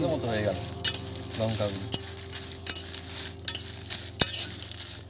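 Long metal spatula scraping and clinking against a metal kadai while dry red chillies are stirred and dry-roasted without oil, with a sharp scrape roughly every second over the dry rustle of the chillies.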